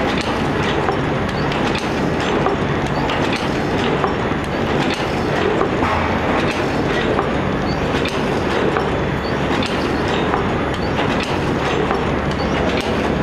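Paper cup forming machine running: a steady, dense mechanical clatter of many quick clicks.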